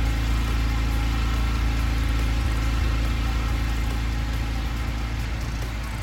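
Pressure washer's engine running steadily at a constant speed, a continuous low drone that eases off slightly near the end.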